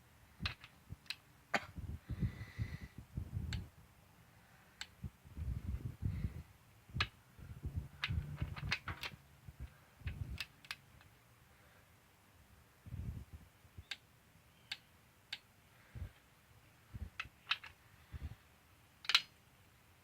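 Scattered sharp clicks and short low knocks of a torque wrench and socket being worked around cylinder head bolts, retorquing them to 33 foot-pounds to check whether any have loosened.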